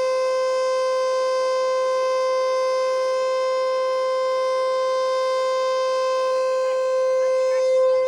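Federal Signal Eclipse 8 electronic outdoor warning siren sounding a steady, unwavering tone during a test, typical of the steady alert signal.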